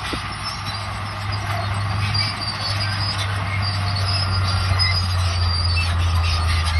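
Crawler bulldozer working: its diesel engine drones steadily while the steel tracks give off thin, high squeals.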